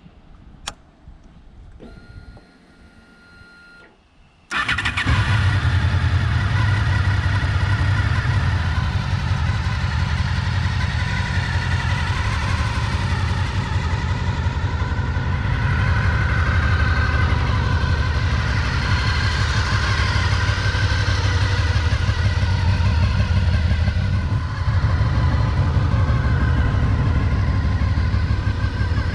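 Honda VFR800FI motorcycle's V4 engine being started: a click and a faint whine, then the engine fires about four and a half seconds in and settles into a steady idle.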